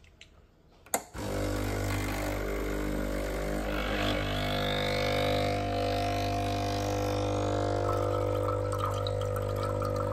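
A click, then water running steadily with a low, even hum under it.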